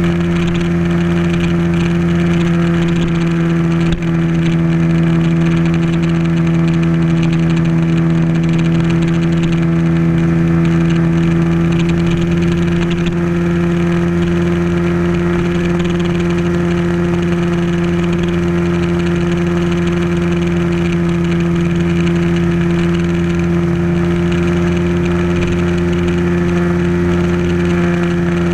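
Bajaj Pulsar motorcycle's single-cylinder engine running under way at a steady pitch, with wind and road noise rushing past. There is a brief knock about four seconds in.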